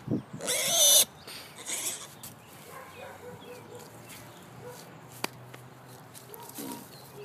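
Juliana mini piglet giving one loud, sharp squeal about half a second in, then a shorter, fainter squeal a second later.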